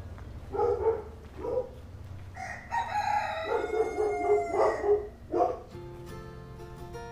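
Rooster crowing: two short calls, then one long crow of about two and a half seconds. Light music with plucked notes starts near the end.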